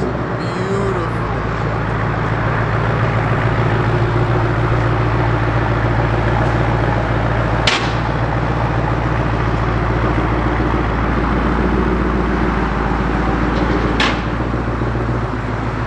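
2024 Ford Mustang GT's 5.0-litre V8 idling steadily, with a deep low hum, through a freshly installed Steeda H-pipe as the car rolls slowly out. Two sharp clicks, about 8 and 14 seconds in.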